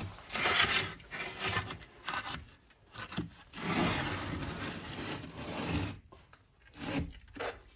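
A metal baking tray loaded with bread dough, shoved with a long wooden pole, scraping across the stone floor of a wood-fired brick oven. It goes in several separate pushes, the longest lasting about two seconds in the middle.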